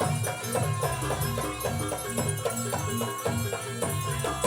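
Live jaranan gamelan music: drums and struck metal gongs and metallophones playing a fast, steady, repeating rhythm.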